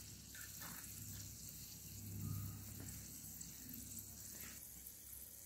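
Faint sizzling of battered okra pieces deep-frying in oil in a small clay pot, with a spoon turning them.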